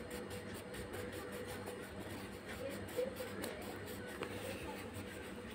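Faint scratching of a wax crayon being scribbled back and forth on paper, over a steady low hum, with a brief soft sound about three seconds in.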